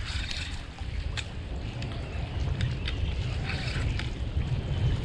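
Wind buffeting the microphone with a low, uneven rumble, over small waves lapping at a rocky shore, with a few short light clicks scattered through.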